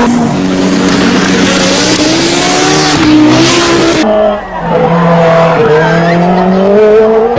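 Group B rally car engines running hard at high revs, in two spliced recordings: after a cut about four seconds in, the throttle lifts briefly and the revs climb again.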